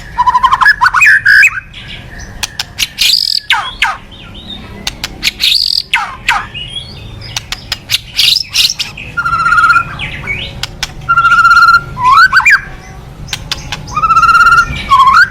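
White-rumped shama (murai batu) giving its harsh 'kretekan' calls: loud rapid chirps and rattles, steep falling sweeps, and short warbled notes about three times in the second half. This is the aggressive call used to provoke other shamas into a fighting mood.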